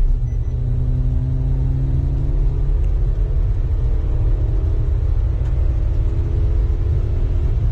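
Suzuki Wagon R's engine and road rumble heard from inside the cabin while it drives along a highway. The engine note climbs slowly as the car accelerates, drops once about three seconds in, then climbs again.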